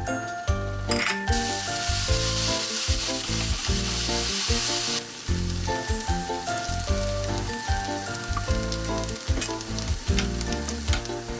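Sliced onion, garlic and chillies sizzling in a hot nonstick pan. About a second in, a louder hissing sizzle starts as liquid goes into the pan and lasts about four seconds, then the pan keeps bubbling with light spatula clicks as the kecap manis sauce is stirred in. Background music with a melody plays throughout.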